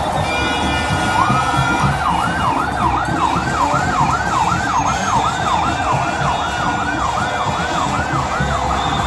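Siren in a fast yelp, its pitch sweeping up and down about twice a second, starting about a second in, over a loud crowd din.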